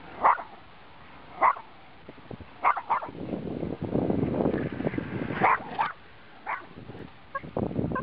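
A small Schnorkie dog (schnauzer–Yorkshire terrier mix) barking at a remote-control boat: short sharp barks about once a second, a quick double bark near three seconds in. Between about three and six seconds a stretch of rough noise runs under the barks.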